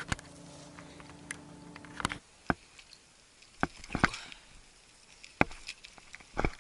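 Irregular sharp clicks and knocks of a body-worn camera being jostled and of footsteps while walking along a sandy, grassy riverbank. A steady low motor-like hum runs under the first two seconds and stops abruptly.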